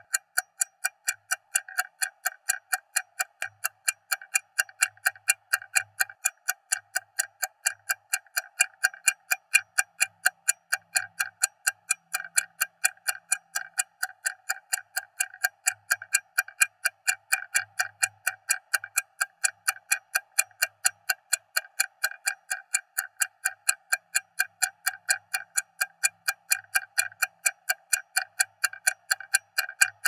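Stopwatch ticking in a rapid, even rhythm of sharp, bright ticks.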